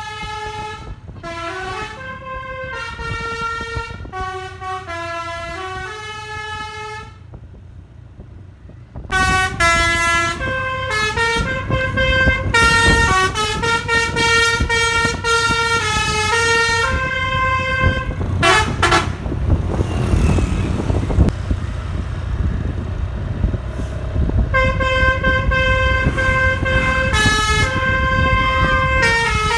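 Bus telolet (basuri) multi-tone air horn played by hand through a pianika-style actuator, stepping through a melody of held notes, with the bus engine running underneath. The tune drops away briefly about seven seconds in and stops for several seconds past the middle, then picks up again.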